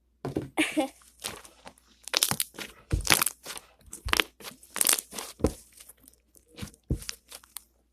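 Slime being squeezed and stretched by hand to blow a bubble, giving irregular sticky pops and crackles as air pockets burst.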